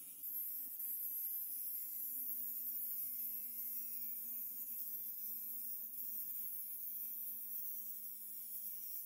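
A Dremel-type rotary tool running at high speed, its small abrasive disc grinding the inside edge of a metal ring: a steady motor whine with a grinding hiss over it.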